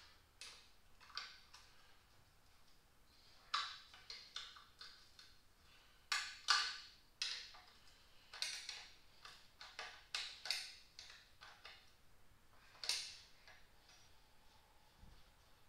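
Irregular sharp clicks and clinks of hand work on truck parts, as hoses, fittings and tools are handled and taken off during disassembly. They come singly and in quick clusters of several.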